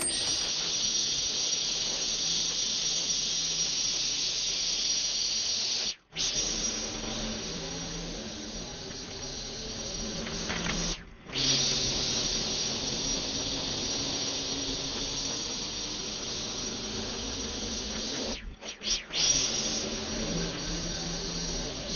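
String line trimmer (whipper snipper) running steadily with a high, hissing whine as it cuts grass along the lawn edge. The sound cuts out abruptly for a moment three times.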